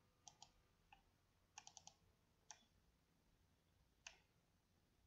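Faint computer mouse clicks, scattered: a few single clicks, then a quick run of four about a second and a half in, and a last single click near the end.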